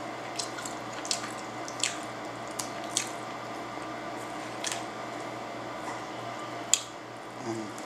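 Wet clicks and squishes of eating: a plastic utensil scooping burrito filling in a takeout container, and the burrito being handled and bitten. There are about six separate sharp clicks over a steady low hum.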